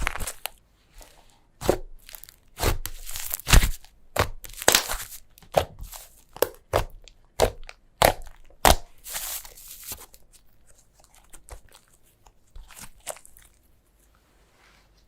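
Slime being squeezed and worked by hand: an irregular run of sharp crackling pops and clicks that thins out and stops about fourteen seconds in.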